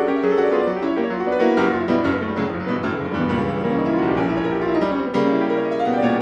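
Background piano music: a solo piano playing quick runs of notes that sweep down and back up.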